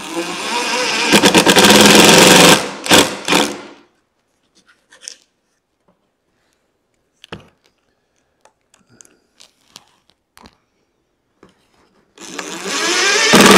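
Cordless drill/driver whirring as it drives screws through a metal drawer slide into a wooden drawer side: one run of about two and a half seconds ending in a few short bursts as the screw seats, and a second run near the end. Light handling clicks in between.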